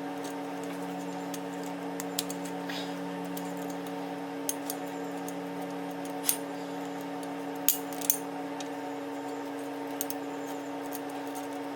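Scattered light metallic clicks and clinks as small steel hub parts, such as the retaining ring and the hub, are handled and seated in a locking-hub install. A steady hum with several tones runs underneath.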